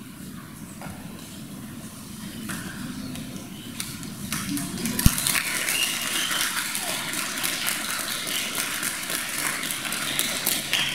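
Audience applauding, building from about two seconds in and fuller from about four seconds, with one sharp knock about five seconds in.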